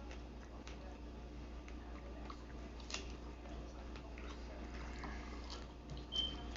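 Faint wet mouth sounds of someone chewing food: small smacks and clicks over a steady low hum. A short high-pitched squeak near the end.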